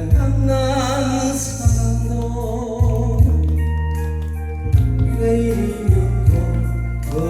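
A song played over a backing track with a heavy, steady bass line and keyboard notes, with a singer's voice wavering in vibrato about a second in.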